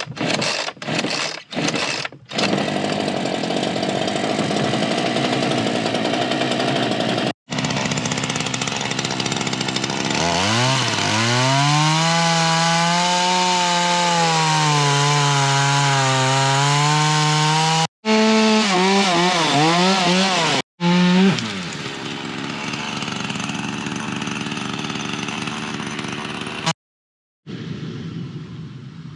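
Chainsaw cutting into a fallen tree's trunk. Its engine pitch dips and rises as the chain loads in the cut. It is broken by several sudden cuts.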